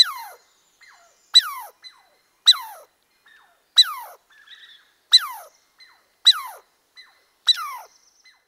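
Squirrel alarm calls repeated seven times, about one every second and a quarter: each a sharp, high call sliding down in pitch, with fainter short calls between them.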